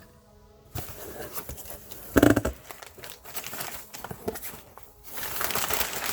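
Packaging being handled and opened: rustling, crinkling and clicking of cardboard and plastic, with one short louder sound a little over two seconds in and a denser crinkling near the end.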